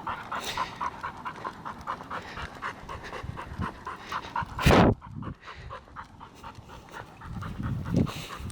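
Pit bull panting steadily, about four breaths a second. About halfway through there is a brief loud burst of noise.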